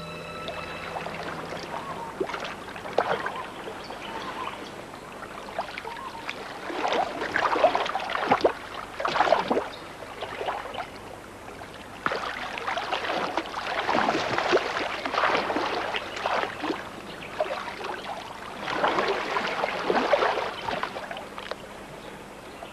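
Shallow seawater splashing and sloshing in irregular surges, some louder than others.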